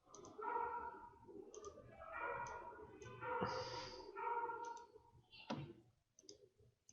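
Scattered, quiet clicks of a computer mouse and keyboard.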